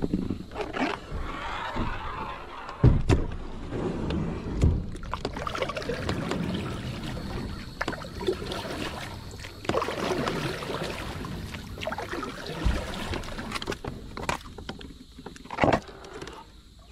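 Moken 12.5 V2 kayak being paddled and pushed through a fallen tree: paddle strokes splashing, with leaves and branches rustling and scraping along the hull. Several sharp knocks are heard throughout.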